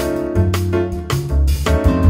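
Background music: an instrumental track with piano and a steady beat.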